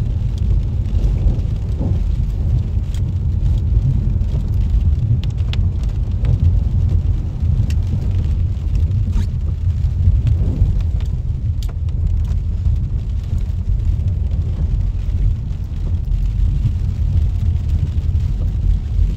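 Steady low rumble of a car driving along a wet, puddled road, heard from inside the cabin, with a few scattered sharp ticks.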